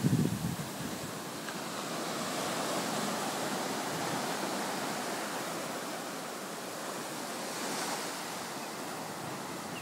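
Ocean surf breaking and washing up the beach in a steady hiss that swells and ebbs slightly, with wind buffeting the microphone for a moment at the start.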